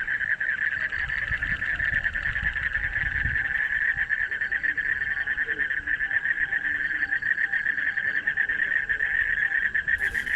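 A dense chorus of frogs calling: a fast, steady, pulsing trill at one high pitch.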